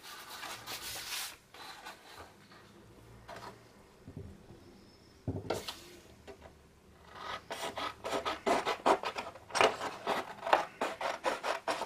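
Scissors cutting a sheet of patterned paper: a quick run of short snips through the second half, getting louder toward the end. Softer paper handling noise comes before it.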